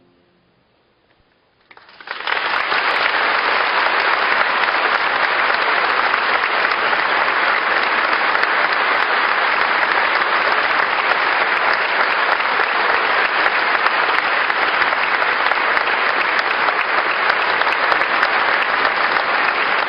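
After a brief near-silent hush, a large concert-hall audience breaks into applause suddenly about two seconds in, and the clapping continues steadily.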